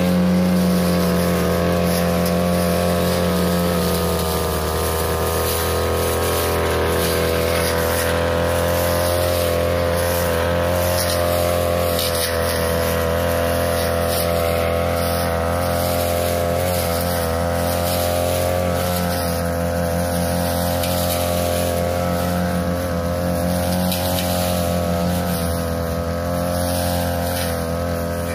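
Backpack brush cutter's small engine running at a steady high speed while it cuts tall grass.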